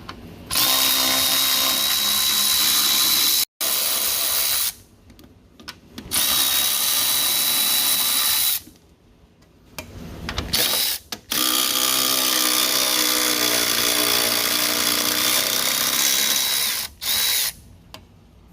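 Cordless power tool, a drill/driver or power ratchet, running in several bursts of one to five seconds with short pauses between, with a steady high motor whine, while the bolts of the front engine mount are backed out.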